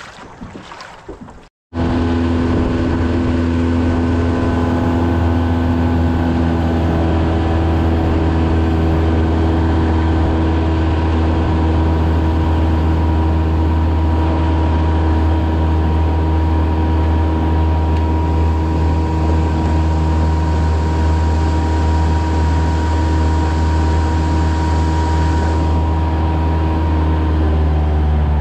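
A small outboard motor starts about two seconds in and runs steadily at cruising speed, pushing a small aluminium fishing boat, heard from on board. Its pitch holds almost constant and shifts slightly near the end.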